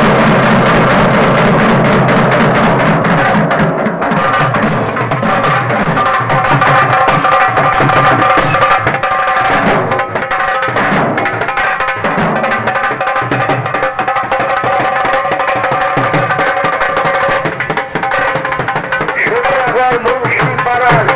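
Tasha party drumming: several tasha kettle drums played with thin sticks in fast, dense rolls, with a barrel dhol beating underneath.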